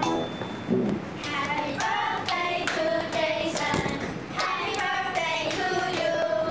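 A group of children singing together, with hand claps along with the song.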